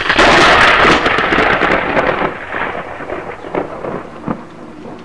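A sudden loud crash of rumbling noise that fades over two to three seconds into scattered crackling and clicks.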